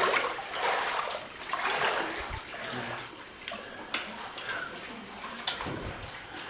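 Shallow water splashing and sloshing in irregular bursts, as when people wade through a cave stream, with a few sharp clicks.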